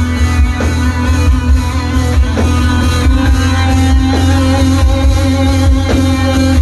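Rock band playing live: electric guitar holding sustained notes over heavy bass, with a drum hit about every two seconds and no vocals.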